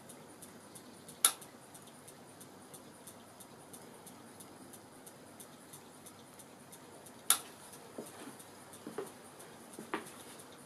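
Model hot-air engine running with its belt-driven model machinery: a light, quick, regular ticking from the mechanism, about four ticks a second. Two sharp clicks stand out, about a second in and about seven seconds in, with a few softer knocks near the end.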